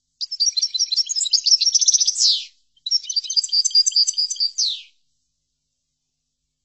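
European goldfinch singing: two quick twittering phrases of trills and chirps separated by a brief pause, each ending in a fast downward sweep.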